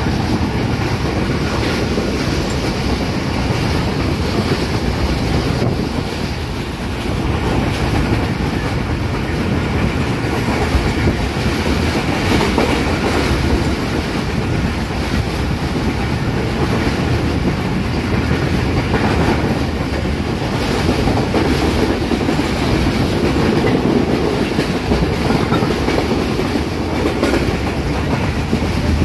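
Pakistan Railways passenger coach running at speed, heard from an open window: a steady loud rumble of wheels on the track, with occasional clacks as the wheels cross rail joints.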